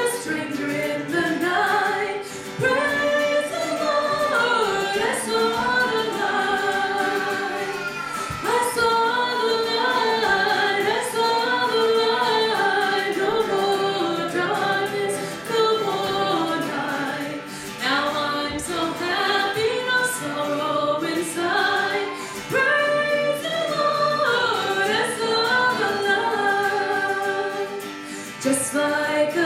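A woman singing a worship song into a microphone while strumming an acoustic guitar.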